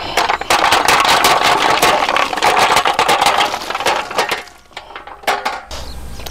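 Chopped goat trotters sliding out of an aluminium bowl into a pot, a dense clattering of bone pieces on metal. The rattle dies away about four seconds in, leaving a few stray clinks.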